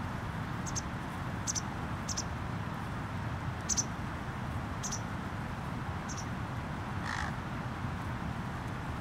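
Small birds give brief high chirps, about six of them spread over the first six seconds, and a single lower, harsher bird call comes about seven seconds in, all over a steady low outdoor rumble.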